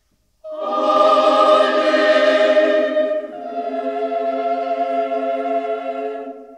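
A choir holding sustained chords: after a brief silence a loud chord enters about half a second in, then gives way around three seconds in to a second, softer held chord that fades near the end.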